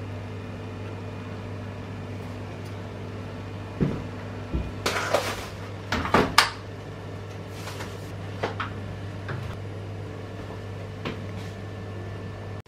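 Groceries being unpacked in a small kitchen: several knocks of items such as a bottle being set down on the counter, and short rustles of packaging, over a steady low electrical hum.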